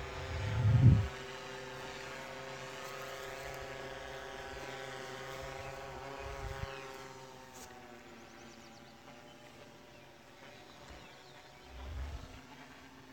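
DJI drone's propellers whining in flight: a steady, many-toned hum whose pitch drifts slightly, growing fainter after about seven seconds. A low rumble just after the start is the loudest sound, and a smaller one comes near the end.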